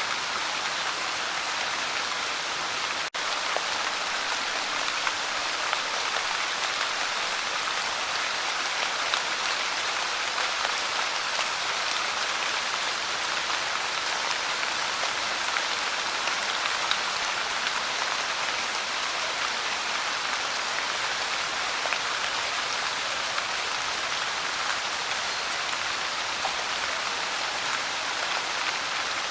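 Light rain falling steadily, an even patter of many small drops. It cuts out for a split second about three seconds in.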